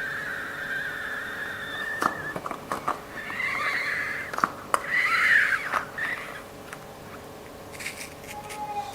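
A rubber balloon letting air out through its stretched neck in a high, steady squeal that stops about two seconds in. It is followed by handling clicks and two shorter, wavering squeals, the loudest a little past halfway.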